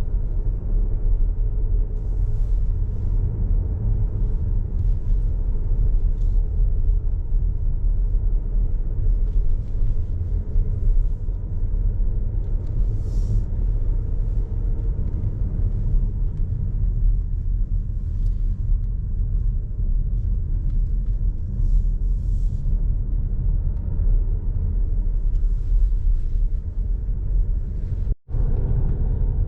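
Car driving along a road: a steady low rumble of engine and tyres, which drops out for an instant near the end.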